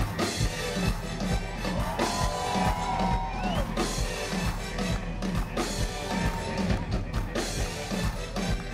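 Live funk band playing loudly: the drum kit keeps a steady beat over electric bass, with a few sliding melodic notes about two seconds in.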